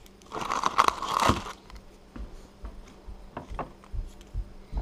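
Dry papery garlic skin crinkling and tearing as cloves are broken off a garlic bulb: a dense rustle lasting about a second near the start, followed by scattered light clicks and taps.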